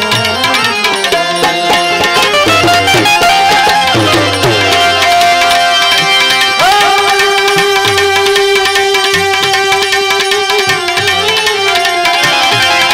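Live devotional bhajan music: tabla keeps a steady rhythm under a melody that slides about at first, then holds one long note through the middle.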